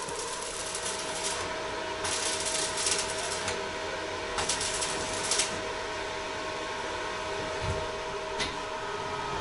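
A steady mechanical hum holding a couple of steady tones, with two stretches of hissing noise about two and four and a half seconds in.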